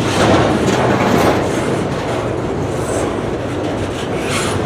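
Freight train's TTX container cars rolling past on the rails: a steady rumble of wheels on rail with occasional clacks.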